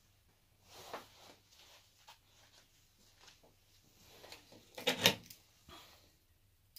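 Faint handling knocks, then a short cluster of metallic clacks about five seconds in as a spring-loaded ground clamp is clipped onto a steel bar.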